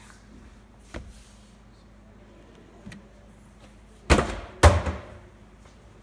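A plastic water bottle flipped onto a shelf hits it with a loud thud about four seconds in and thuds again half a second later as it bounces. Fainter knocks come about one and three seconds in.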